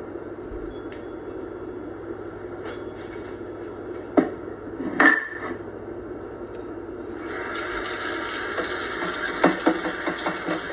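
Kitchen sink tap turned on about seven seconds in, water running steadily into the sink as hands are washed after handling raw chicken. Before it, a low steady hum and two sharp knocks, which are the loudest sounds; a few light clatters come near the end.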